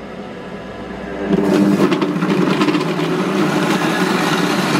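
Cecotec Mambo 8090 kitchen robot running on turbo, its blades chopping a thick fish-meatball mixture of squid, onion, egg and breadcrumbs. The motor spins up over about the first second, then runs steadily at full speed.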